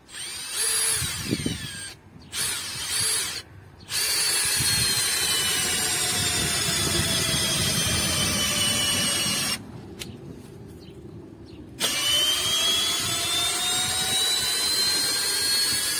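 Makita DDF485 18-volt brushless cordless drill/driver, set to drilling mode in low gear, driving a large lag screw across the grain into a birch log. The motor whines in two short bursts, then in a long run whose pitch slowly sinks as the load builds. After a pause of about two seconds it spins up again for a final long run.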